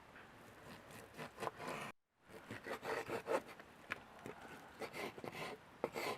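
Irregular knocks, clicks and scrapes of objects being handled, with a short break about two seconds in.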